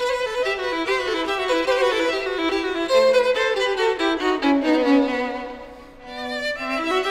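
Instrumental background music led by a violin playing a melody of quick notes; the line steps down in pitch and the music dips in loudness about six seconds in before picking up again.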